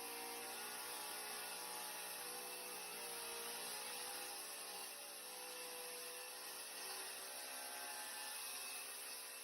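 Power saw running steadily while cutting a solid-surface countertop, its pitch drifting slightly up and down as the load on the blade changes, with a steady high hiss.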